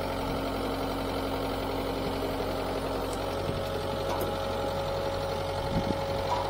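Diesel engine of a Takeuchi compact track loader running steadily while it works its pallet forks.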